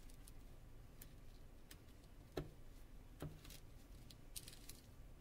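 Near silence: faint room hiss with a few soft clicks, the clearest about two and a half seconds in and another almost a second later.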